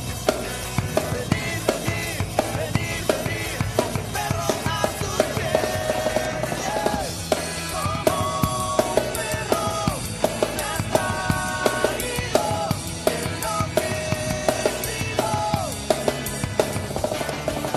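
Music with a steady drum-kit beat and a melodic line over it.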